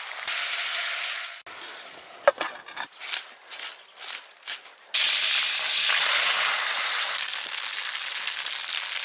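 Fish fillets and sliced garlic sizzling in a pan. About a second and a half in, this gives way to a knife chopping parsley on a wooden board in a run of quick, uneven cuts. About five seconds in, loud steady frying sizzle takes over again.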